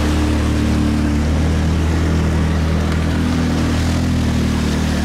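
ATV engine running steadily at low revs as the quad drives through a shallow muddy stream, with water splashing and rushing around the front wheels.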